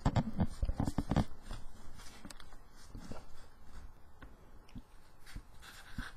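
A person chewing food with lip smacks: a quick run of short wet clicks in the first second or so, then sparser ones.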